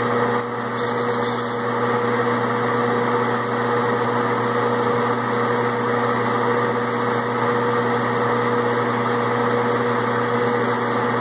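Metal lathe running with a steady hum while its cutting tool faces down the threaded end of a spinning Delrin plastic part.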